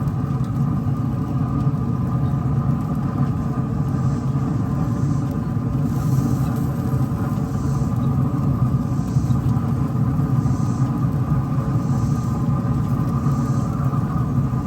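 A steady machine rumble with a low hum and a few steady higher tones, like a motor running without change. Faint soft swishes recur about every second and a half.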